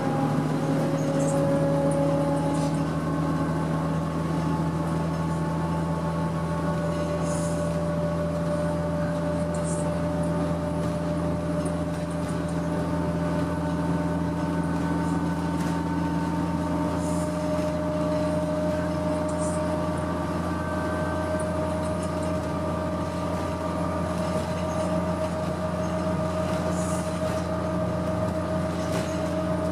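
Inside the cabin of a 2006 Orion VII diesel transit bus at speed: the Cummins ISL diesel drones steadily under a drivetrain whine that slowly rises in pitch as the bus gathers speed. A few light rattles come through now and then.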